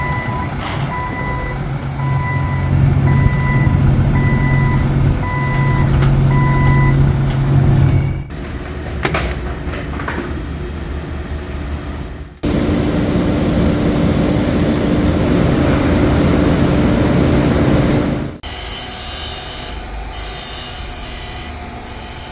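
A series of different industrial machine sounds, cut one after another. First a heavy machine's engine running with a reversing alarm beeping about once a second, then three other machines in turn, the third with a steady hum.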